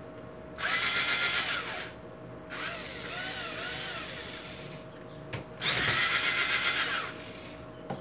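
Power drill-driver tightening a screw into a fan's housing, run in three spurts: a loud one of about a second, a quieter two-second run with the motor's pitch wavering, then another loud spurt of about a second and a half near the end.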